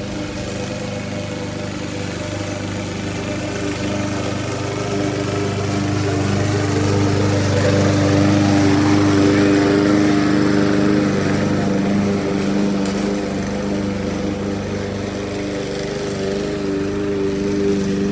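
PowerSmart 161cc self-propelled lawn mower's single-cylinder engine running steadily. It grows louder toward the middle and then eases off again.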